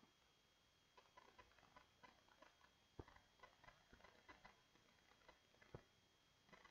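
Near silence: room tone with faint, irregular small clicks and ticks, a few slightly sharper, over a faint steady high-pitched whine.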